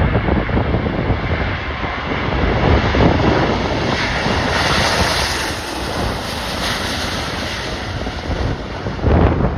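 Gusty wind buffeting the microphone, with a landing jet airliner's engine noise swelling and then fading in the middle.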